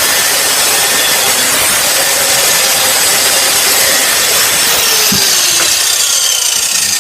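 Hyper Tough angle grinder's cut-off disc grinding steadily through a grade 8 steel bolt that is holding on by a string. About five seconds in, the grinder's whine starts to fall in pitch.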